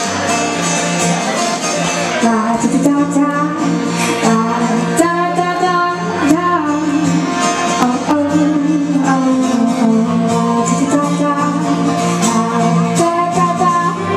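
A band playing a song live, with a voice singing over the instruments from about two seconds in.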